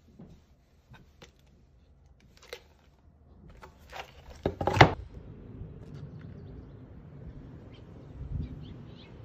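Scattered light knocks and taps, with a louder clatter about halfway through, followed by a steady low rumble.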